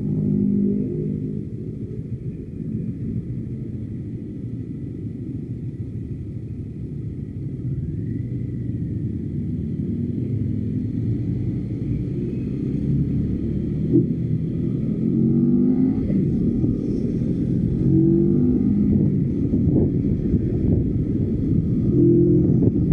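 CFMoto NK motorcycle engine running while riding at low speed, its pitch rising in short pulls several times as the throttle is opened.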